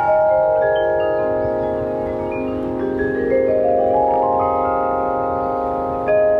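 Instrumental music: a cascade of ringing notes, each held so that they overlap, stepping down in pitch for about two and a half seconds and then climbing back up, with a louder note entering near the end.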